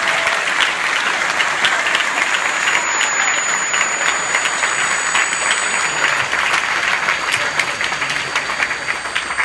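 Large audience applauding: dense, sustained clapping, easing off slightly near the end.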